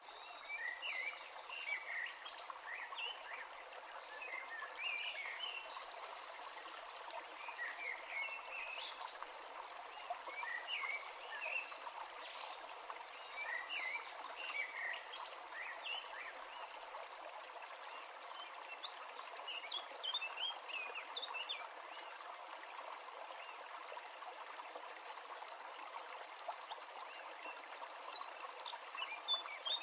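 Small songbirds chirping and twittering in repeated short phrases over a steady outdoor background hiss.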